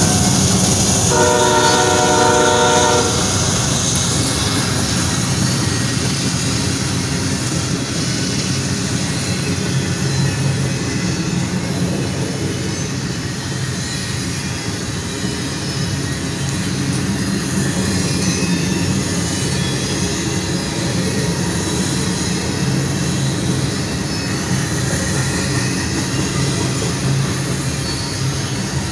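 Freight train passing close by. About a second in, a diesel locomotive horn sounds a multi-note chord for about two seconds. After that comes the steady, continuous noise of tank cars and boxcars rolling over the rails.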